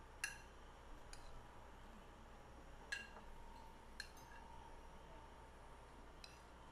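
A metal spoon clinking lightly against ceramic dishes while rice and tomato slices are served onto a plate: a handful of short, sharp taps over near-silent room tone.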